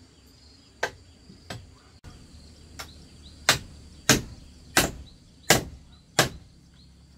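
A hand tool striking over and over at a steady pace, about one blow every two-thirds of a second: three fainter blows, then five louder ones. A steady high insect buzz runs behind.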